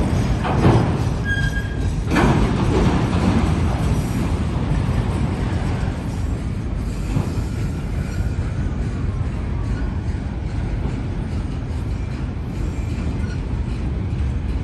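Autorack freight cars of a manifest train rolling past: a steady rumble of steel wheels on rail. There are heavier knocks over the first few seconds and a brief squeal about a second in.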